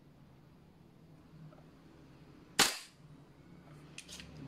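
A single shot from a VFC Knight's Armament SR-16 gas blowback airsoft rifle, a sharp crack with a brief tail, about two and a half seconds in. A few faint clicks follow near the end.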